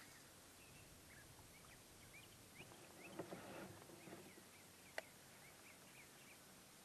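Faint outdoor quiet with small birds chirping on and off in the distance. A brief soft rustle about three seconds in and a single sharp click about five seconds in.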